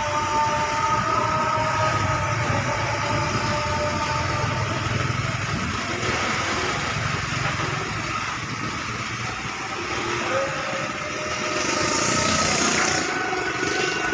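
Heavy bus engine running with a low rumble, under a steady chord of several held tones that fades out over the first few seconds. A short burst of hiss comes near the end.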